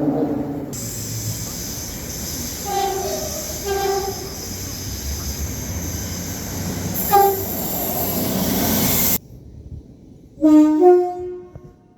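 Train horn giving three short blasts, two about a second apart and a third about three seconds later, over the steady rumble and hiss of a moving train. The train noise cuts off suddenly, and a louder horn blast follows near the end.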